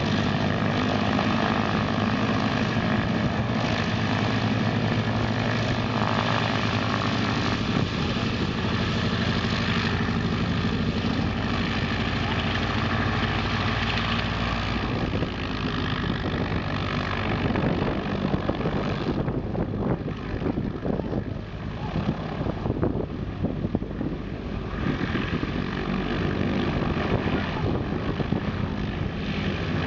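Two nine-cylinder air-cooled radial engines (Shvetsov ASh-62IR) of a 1949 Lisunov Li-2 running at low power with their propellers turning as the aircraft taxis. The engine note is steady for the first half, then turns softer and less even, with brief dips.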